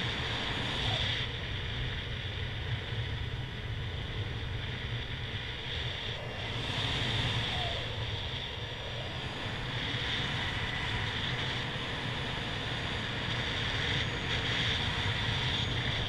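Airflow noise on the microphone during paraglider flight: a steady rush with a low rumble and a hiss that swells and cuts off sharply a few times.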